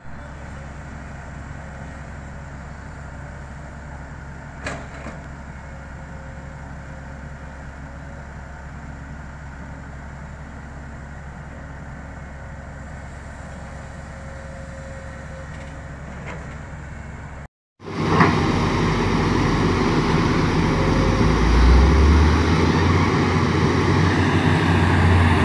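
Diesel engines of a Liugong 920D excavator and a dump truck running steadily, with a single knock about five seconds in. About two-thirds through, the sound drops out for a moment and comes back louder, a deeper heavy-engine rumble with more noise over it.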